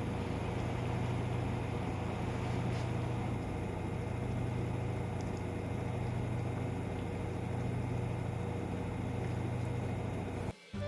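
Steady low machine hum with a faint higher whine, cutting off abruptly just before the end.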